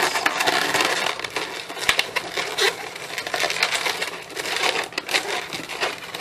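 Inflated latex modelling balloons (260s) being bent and twisted by hand: a dense run of latex rubbing with many small clicks.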